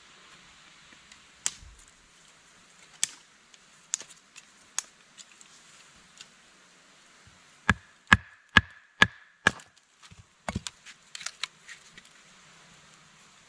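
A small wood fire crackling with occasional sharp pops, then a run of five hard chopping knocks on wood, about two a second, with a faint ring between them, followed by a quick flurry of lighter clicks.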